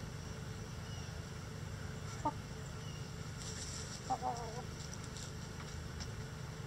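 Backyard hens clucking: one short cluck about two seconds in, then a quick run of clucks about four seconds in, over a steady low background hum.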